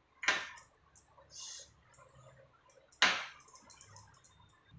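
Two sharp taps about two and a half seconds apart, with a brief soft swish between them, as a silicone pastry brush is dipped in sugar syrup and dabbed onto a sponge cake layer.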